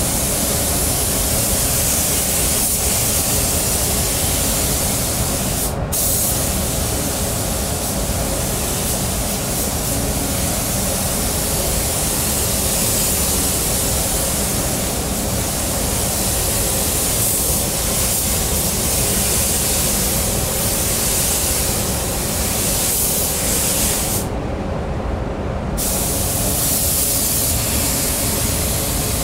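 Gravity-feed paint spray gun hissing steadily as it sprays a coat of dark paint onto a car, over a steady low rumble. The hiss breaks off briefly about six seconds in, and again for a second or two near the end, as the trigger is let go.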